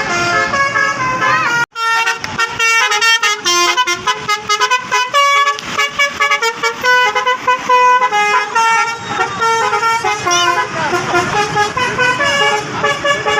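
Telolet bus horn, a multi-tone air horn, playing a fast tune of short notes that jump from pitch to pitch, broken off briefly once near the start.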